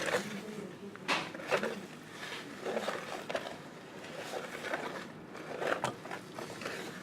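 Mixing a thin cake batter by hand in a bowl: irregular scraping and knocking of the utensil against the bowl, a few louder strokes about a second in and near the end.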